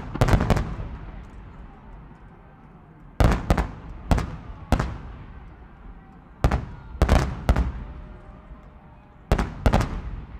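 Aerial firework shells bursting in volleys: four clusters of loud bangs, a few seconds apart, each cluster followed by a rolling echo that dies away.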